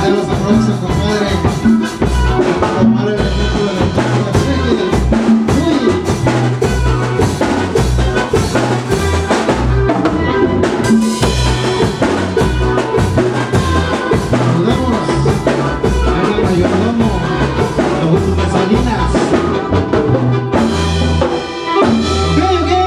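A band playing a chilena mixteca, with drums and bass keeping a steady dance beat; near the end the beat breaks off into a long held chord.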